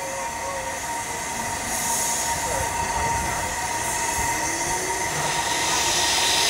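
Train running on rails, a noisy rumble that grows gradually louder, with a thin steady high tone held throughout.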